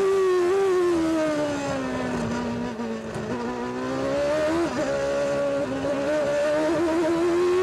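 Benetton B189's Ford V8 racing engine heard onboard at high revs; the pitch falls steadily over the first three seconds as the car slows into a corner, then climbs again as it accelerates out, with a brief wobble about four and a half seconds in, and holds high near the end.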